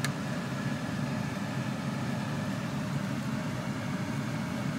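Wooden utensils tossing linguine in a creamy sauce in a frying pan, with one sharp tap against the pan as it begins, over a steady low hum.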